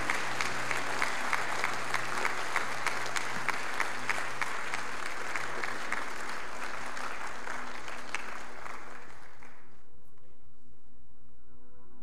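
Congregation applauding, the claps falling into a steady rhythm of two or three a second, then dying away about ten seconds in. Soft background music is left underneath.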